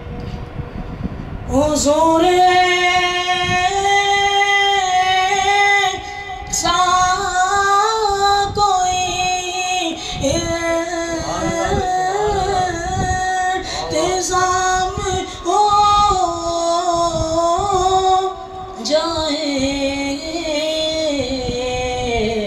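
A boy reciting a naat, an Urdu devotional poem in praise of the Prophet, in a high unbroken voice and without accompaniment: long held notes with wavering ornamented turns. The singing comes in about a second and a half in, with a short breath break near the end.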